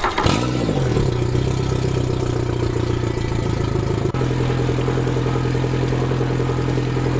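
Suzuki DF115 four-stroke outboard running on a garden-hose flush: a brief rev that rises and falls just after the start, then a steady idle.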